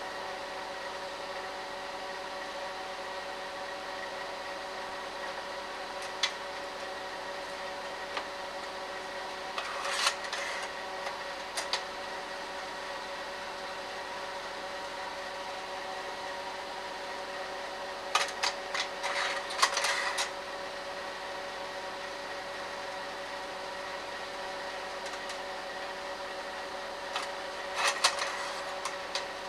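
Slide projector running with a steady fan-motor hum. Several short runs of clicks and clunks come from its slide-change mechanism: a lone click about a fifth of the way in, then clusters about a third of the way in, around two-thirds, and near the end as the screen goes dark for the next slide.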